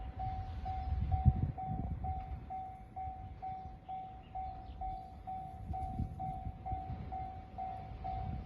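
Japanese railway level-crossing warning bell ringing: one high electronic ding repeated evenly about two and a half times a second, over a low rumble.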